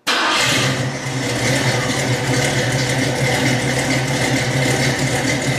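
A steady low mechanical hum, like a motor running, with a faint high whine above it.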